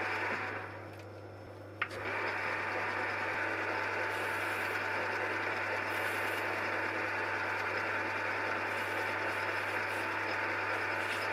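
Metal lathe turning a brass bar with a single-point cutting tool: a steady cutting noise over a low motor hum. The cutting noise falls away for about a second and a half just after the start, then comes back with a sharp click.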